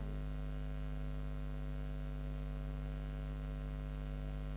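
Steady electrical mains hum: a low, unchanging drone with a row of higher overtones that gives it a buzz.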